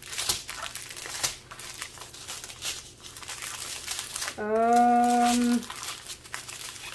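Strip of small sealed plastic bags of diamond-painting drills crinkling as it is handled and unfolded. About four and a half seconds in, a single voiced sound is held for about a second.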